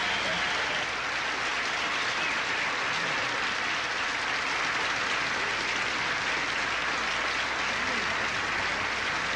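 Large audience applauding steadily, a dense, even clapping.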